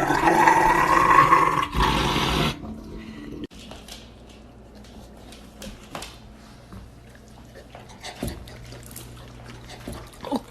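A dog growling loudly, cut off suddenly about two and a half seconds in, followed by faint scattered clicks and small handling sounds.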